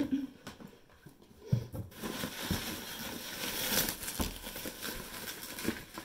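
Plastic bubble wrap crinkling and rustling as it is pulled out of a cardboard box and unfolded, starting about two seconds in. A single knock about a second and a half in, from handling the box and its contents.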